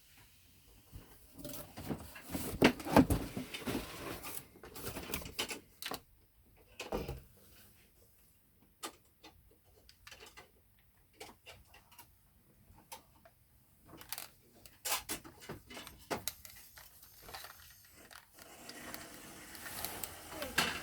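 Handling noise from a large plastic toy being picked up and turned over: irregular clicks, knocks and rustling, loudest about two to four seconds in.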